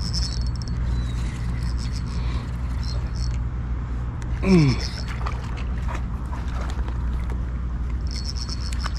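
Insects chirping in short repeated pulses over a steady low hum. About four and a half seconds in comes a single short cry that falls steeply in pitch.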